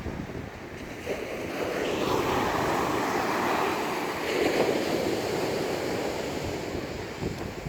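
Rough sea with waves breaking and surging, and strong wind buffeting the microphone. The surf swells louder about two seconds in and again a little past halfway.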